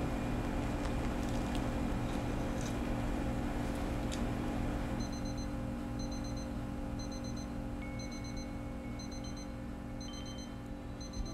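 Digital timer alarm beeping in quick groups of four pips, about one group a second, starting about halfway through over a low steady hum.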